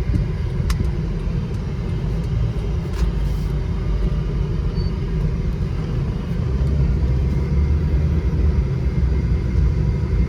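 Steady low rumble of a car moving along a road, heard inside the cabin with the air conditioning running; it grows a little louder about six seconds in.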